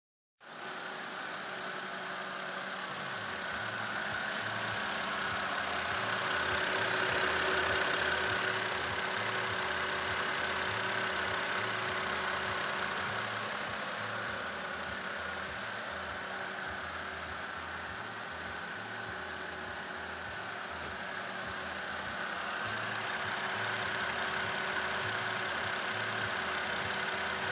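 BMW 528i's N52 straight-six engine idling steadily with a ticking noise.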